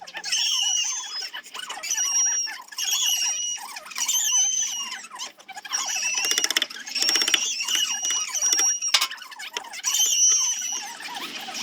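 Power sanding tool grinding on zelkova root wood, squealing in short repeated passes about every second or so. There is a longer, chattering pass in the middle.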